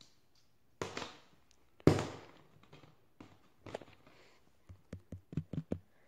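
Small plastic toy figures being handled and set down: a short rustle about a second in, a sharp knock about two seconds in, then a quick run of light plastic clicks and taps near the end.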